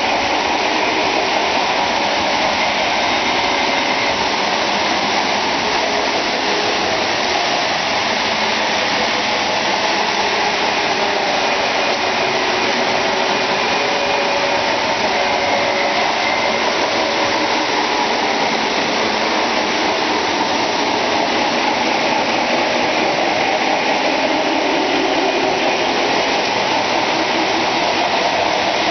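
Several Lionel O-gauge three-rail model trains running at once: a steady whirring rush of electric motors and metal wheels rolling on the track.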